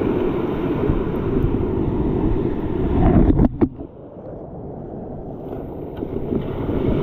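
Ocean surf washing up the beach, with wind buffeting the microphone. The noise drops sharply about halfway through, then slowly builds again.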